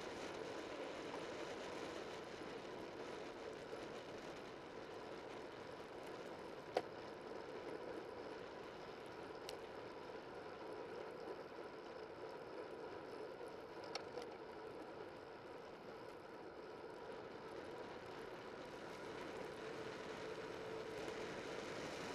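Steady, fairly quiet rolling noise of a bicycle riding along a road, picked up by a camera mounted low on the bike, with two sharp clicks from the bike or mount, one about a third of the way in and one about two thirds in.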